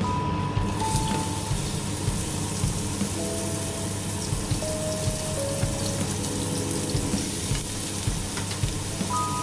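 Water running steadily from a tap, starting about a second in, under background music with a slow melody.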